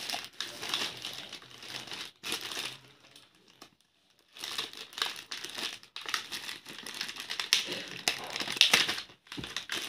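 Clear plastic packaging crinkling as hands handle a boxed toothbrush pack. It comes in irregular bursts of rustling, with a short pause a little before the middle.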